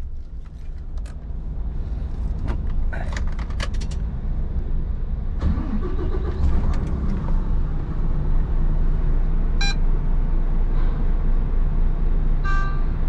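Low, steady engine hum with scattered clicks and rattles in the first few seconds. It grows louder about five seconds in.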